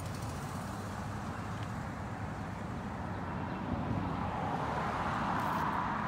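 Steady road traffic noise, swelling about halfway through and peaking near the end as a vehicle passes.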